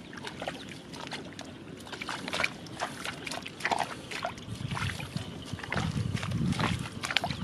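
Bare feet splashing and squelching through ankle-deep water and mud, an uneven run of wet steps. A low rumble joins in about halfway through.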